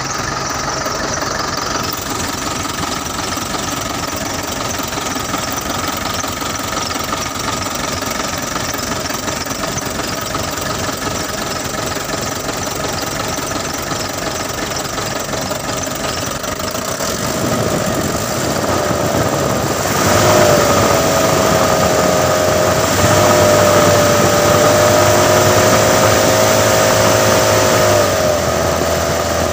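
Freshly rebuilt diesel engine of a Mitsubishi PS 125 truck running after its first start, its injection pump newly set. It runs steadily at first, picks up speed from a little past halfway with a rising whine, holds there, then drops back near the end.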